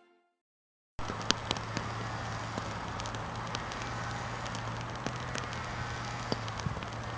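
Bonfire crackling with irregular sharp pops, over a steady low hum.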